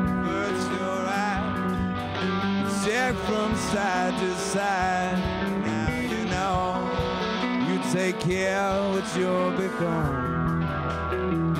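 A rock band playing live: two electric guitars, a plucked electric bass and drums, with a wavering, bending melody line on top.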